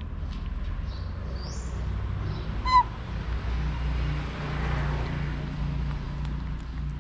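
A single short, loud, high-pitched animal squeak about three seconds in, over a steady low hum, with faint high chirps and a soft rustling hiss in the background.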